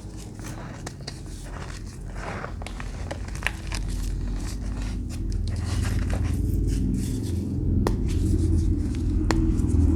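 Scattered crinkling and crackling clicks from crunchy material being handled, over a low rumble that grows steadily louder.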